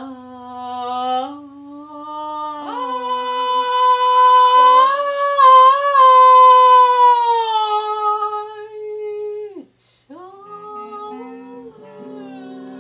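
A woman's voice singing a long, wordless held note that swells to its loudest in the middle and breaks off, then starts another rising note. An acoustic guitar comes in near the end.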